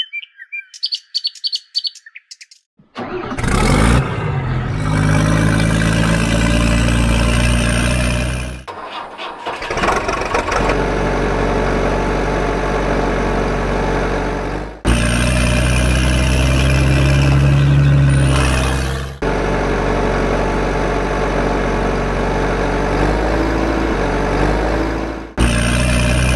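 Birds chirp briefly, then about three seconds in a heavy truck engine starts and runs steadily. The engine sound stops and restarts abruptly several times, as spliced stretches.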